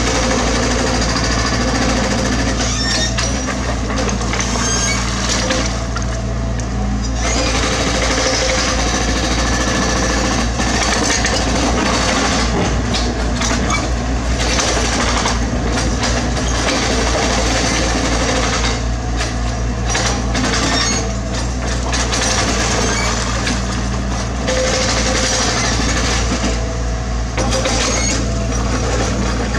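Mini excavator's diesel engine running steadily under work, with scattered clanks and scraping of rock debris.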